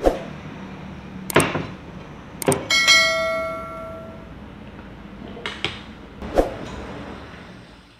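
Cleaver chopping pieces of mackerel tuna on a plastic cutting board: six sharp knocks at uneven intervals, with a bell-like metallic ring lasting about a second and a half about three seconds in.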